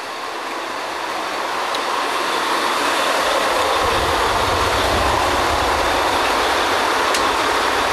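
Drilling rig machinery running: a steady, loud mechanical rumble and clatter from the rig's diesel engines and draw works. It grows louder over the first few seconds as the doghouse door opens onto the rig floor, and a deep low rumble comes in about three seconds in.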